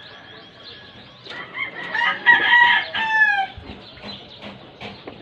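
A rooster crowing once, starting about a second in: a drawn-out call that ends in a falling note.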